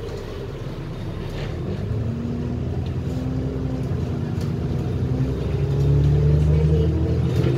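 Alexander Dennis Enviro 400 double-decker bus heard from inside, pulling away and accelerating: engine and driveline running with whines that rise in pitch, growing louder from about five seconds in.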